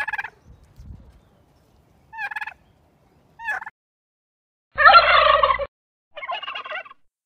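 Tom turkey gobbling: a few short calls, then one long, loud gobble about five seconds in, followed by a shorter one.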